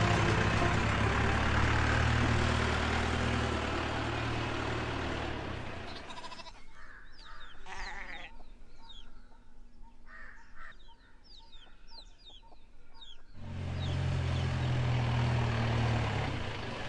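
Engine of the yellow mobile lab van running as it drives, a steady low rumble that stops abruptly about six seconds in. Then a quieter stretch of small birds chirping in short falling notes with chickens clucking. Near the end the van's engine rumble comes back suddenly.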